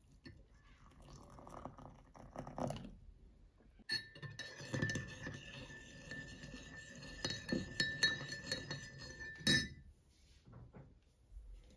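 Hot water poured from an electric kettle into a ceramic mug for about three seconds. Then a metal spoon stirs and clinks rapidly against the inside of the mug, which rings. The clinking stops suddenly near the end.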